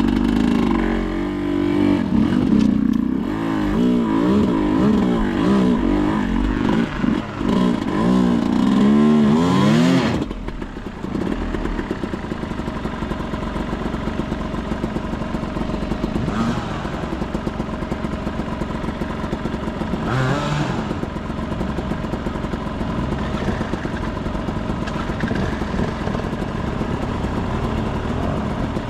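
Enduro motorcycle engine revving hard in repeated rising and falling bursts for about ten seconds, then running on steadily at a lower, even pace.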